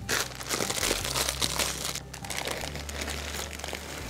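Plastic pasta packet crinkling as it is handled and tipped, densest in the first two seconds, then dry torti pasta spirals pouring out of it into a pot of boiling water near the end.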